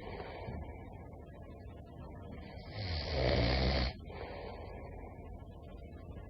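A person snoring: one loud snore with a low vibrating rumble about halfway through, which cuts off abruptly, and quieter breathing before and after it. The snores come about every four seconds.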